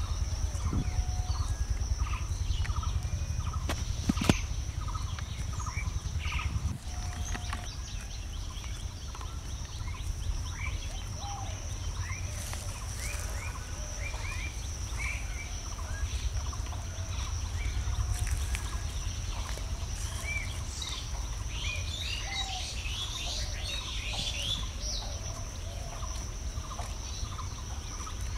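Many short bird chirps over a steady high insect buzz and a continuous low rumble. One sharp knock about four seconds in.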